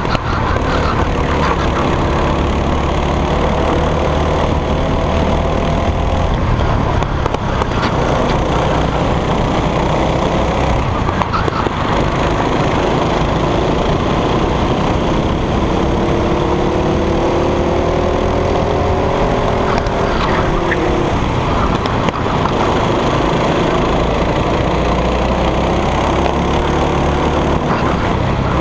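Go-kart engine running hard under racing, its pitch rising and falling as the throttle is opened and closed, over a constant rush of noise.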